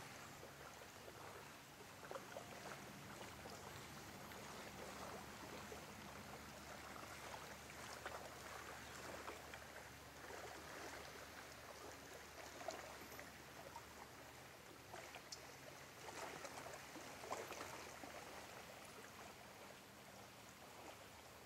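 Small wavelets on a lake lapping faintly at the water's edge: a soft, irregular trickle of little splashes, with a faint steady low hum underneath.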